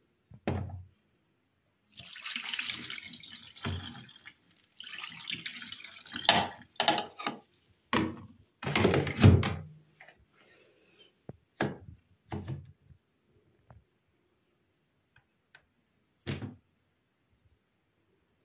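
Water running from a tap in two short spells, followed by a series of knocks and clatters as things are handled at the sink.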